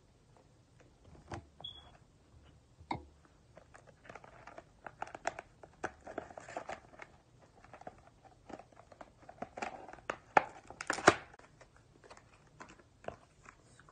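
A tempered-glass screen protector's cardboard box and plastic packaging being opened by hand: scattered clicks, crinkling and tearing that grow busier after the first few seconds, with two louder snaps later on.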